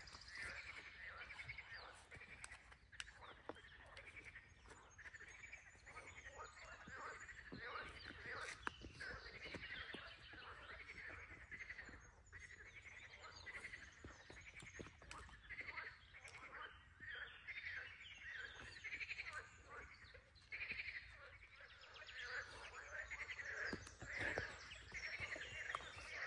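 Frogs croaking in a chorus, many short calls overlapping without a break.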